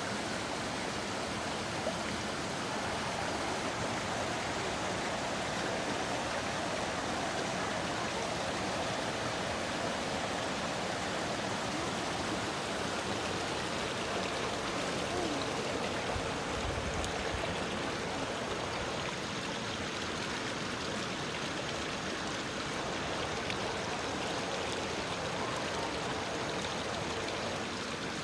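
Running water, a steady rush of stream or small waterfall flow that keeps an even level throughout.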